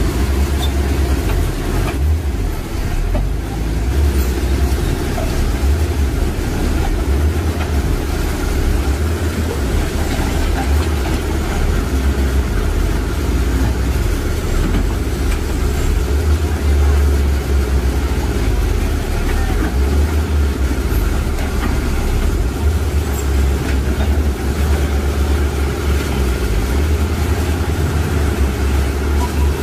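Komatsu hydraulic excavator's diesel engine running steadily under digging load, a deep, pulsing rumble.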